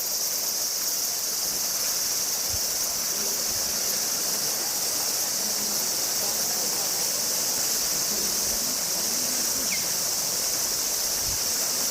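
Steady, high-pitched drone of a summer insect chorus, unbroken throughout.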